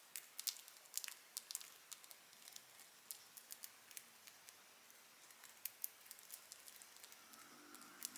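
Budgerigars chewing and nibbling dried seagrass: irregular small crisp clicks and crunches, thickest in the first second or so and then scattered.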